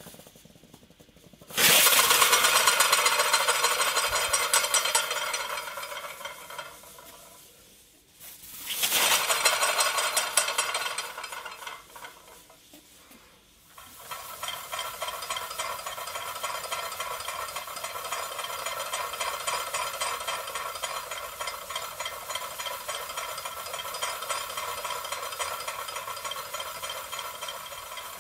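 Glass Hero's engine (aeolipile) running: steam sputtering and hissing out of its two bent nozzles as the bulb spins, a fast rattling sizzle. It swells and fades twice, then settles into a steadier, quieter sputtering hiss about halfway through.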